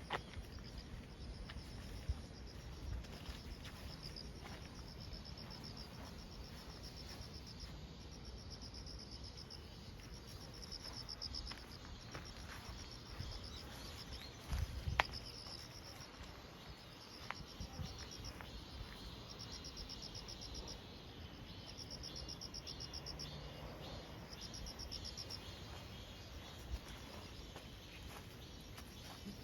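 Crickets chirping in short pulsed trills, repeated one after another, with a few soft knocks, the loudest about halfway through.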